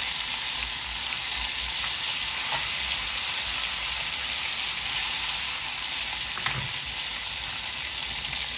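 Two ribeye steaks sizzling steadily in a hot cast-iron grill pan, fat spitting with an even hiss.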